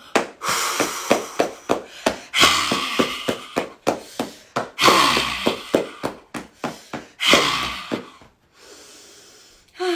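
A woman beating her chest with her hands in quick thumps, about four a second, while breathing out hard in four long, noisy 'haa' breaths, in a qigong purging exercise for the lungs. The thumping thins out near the end.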